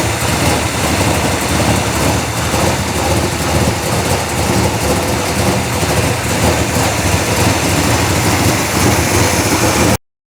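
Chevrolet big-block V8 in a Chevelle SS, running steadily and loud on a newly installed Edelbrock Pro-Flo 4 electronic fuel injection that is not yet fine-tuned. The sound cuts off abruptly near the end.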